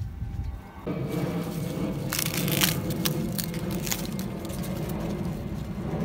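Maize leaves rustling and crackling as a green ear of corn is twisted and snapped off its stalk, with a cluster of sharp snaps between about two and four seconds in. A steady low hum runs underneath.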